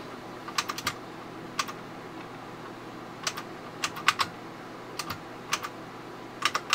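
Computer keyboard keys pressed one at a time and in quick bursts of two to four, at irregular intervals.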